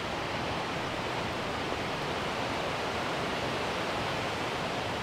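A steady, even rush of outdoor background noise with no distinct events.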